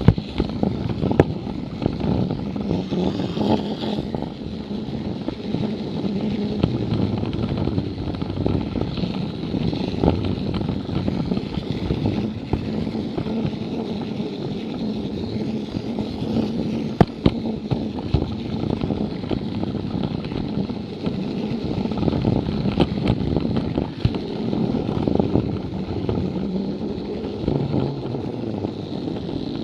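Plarail toy train's small battery motor whirring steadily as it runs along plastic track, the wheels rumbling, with scattered sharp clicks as it passes over the track joints.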